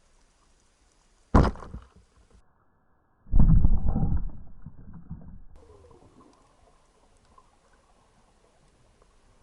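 Underwater speargun shot: a sharp crack, then about two seconds later a loud churning rush of water that fades over a couple of seconds.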